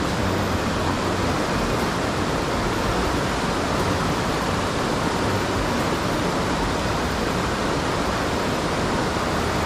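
Rapids of a rocky stream rushing over and between boulders: a steady, even water noise.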